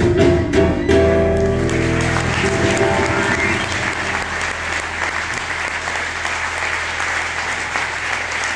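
Acoustic guitar ends the song with a few strummed chords, the last one ringing out, as audience applause starts about a second in and carries on steadily after the music fades.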